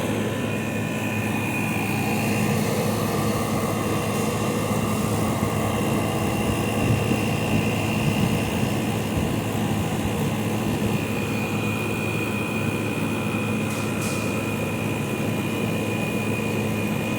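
Hisense 12,000 BTU window air conditioner running with a steady hum from the compressor and the fan blowing air. It puts out only ambient air with no cold, which the owner puts down to the Freon having leaked out.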